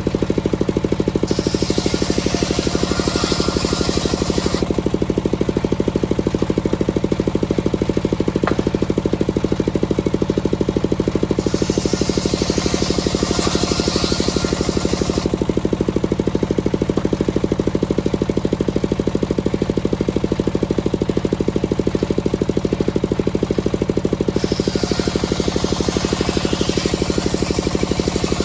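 Sawmill circular saw running steadily under its engine, making three rip cuts through teak boards. Each cut lasts a few seconds, and a hissing cutting noise rises over the steady running: near the start, around the middle and near the end.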